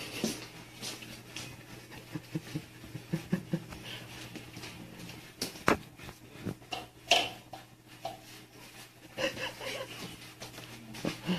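Cats eating dry kibble from plates on the floor: scattered small clicks and crunches, with two sharper knocks a little past the middle.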